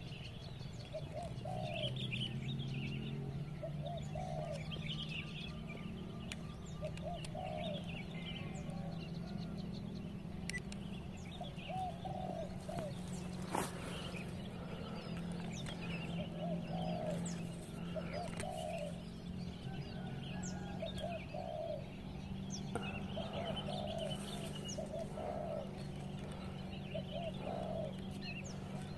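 Doves cooing in short repeated phrases every second or two, with smaller birds chirping over them. A low steady drone runs underneath, and there is one faint click about halfway through.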